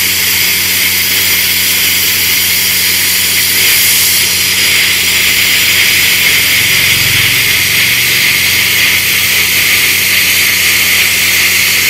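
Tenya CUT 50 air plasma cutter cutting through 12 mm steel plate: a steady, loud, high hiss of the plasma arc and air jet, with a steady low hum beneath it.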